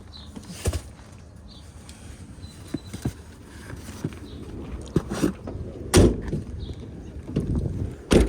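A series of knocks and clunks from hands working on an air conditioner's outdoor unit while its capacitor is swapped, the two loudest about six seconds in and just before the end.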